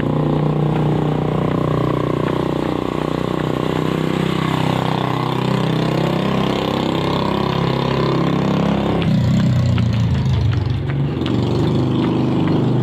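A motor vehicle engine running steadily close by, with a vehicle passing by about five seconds in.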